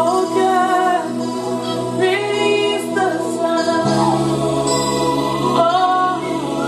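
Women's voices singing gospel worship in gliding, ornamented lines over long held keyboard chords. A deeper bass note comes in about four seconds in.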